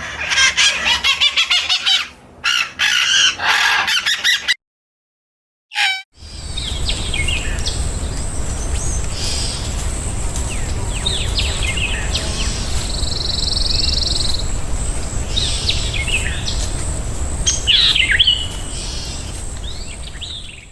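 Small birds chirping: a dense bout of quick chirps, a short silence, then scattered short chirps over a steady low outdoor rumble and a constant high thin tone.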